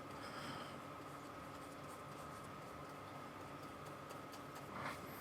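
Faint scratching of a paintbrush stroking acrylic paint onto canvas.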